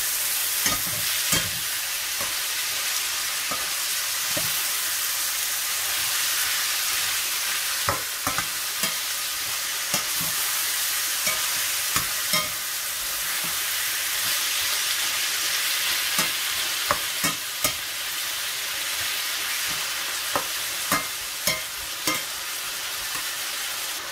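Diced chicken and onions sizzling in a stainless steel frying pan, with a steady hiss broken by scattered scrapes and taps of a spatula against the pan as the pieces are stirred.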